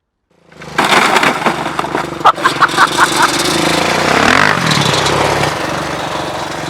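ATV (four-wheeler) engine running loud, its pitch rising and falling as it is revved near the middle. About two seconds in comes a quick run of five or six sharp pops or knocks.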